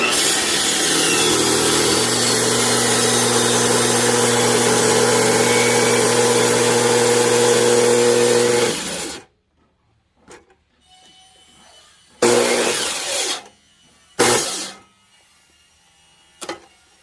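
Power saw running steadily under load as it cuts through a firewood log, stopping about nine seconds in as the cut finishes. Two short bursts of the saw follow a few seconds later.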